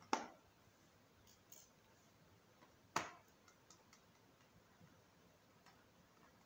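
Two sharp clicks about three seconds apart, each dying away quickly, with a few faint small ticks between them. They come from fingers working small parts on the back of an Oukitel WP6 rugged smartphone.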